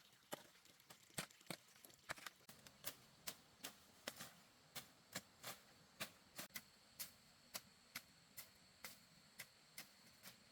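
Irregular series of sharp clicks or taps, about two to three a second, over faint background hiss.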